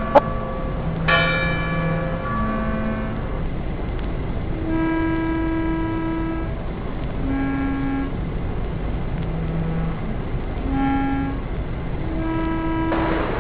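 A slow series of held pitched tones, one after another, each lasting from about half a second to two seconds and changing pitch from tone to tone, over a steady background noise. The longest tone comes about five seconds in.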